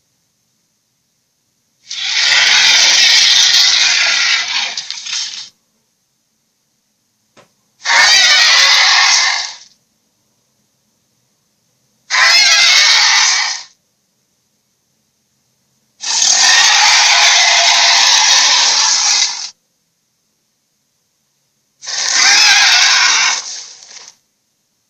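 Five separate harsh, rasping creature-like cries from a sound-effect track, each lasting one and a half to three and a half seconds, with complete silence between them.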